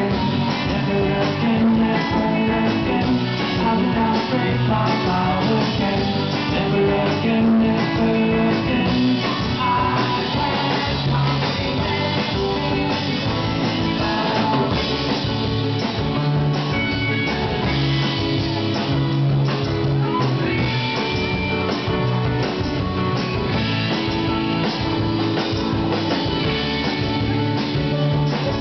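A live rock band playing, with electric guitars, drums and a sung vocal, heard from the audience.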